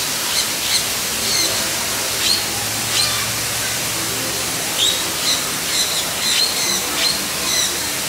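Small parrots calling: many short, shrill squawks and chirps at irregular intervals over a steady hiss.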